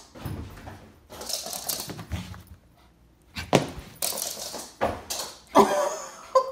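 A small dog barking several times in short, sharp bursts.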